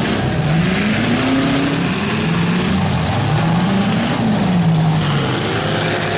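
Demolition derby car engines revving, their pitch rising and falling in long swells about every two seconds over a steady wash of noise.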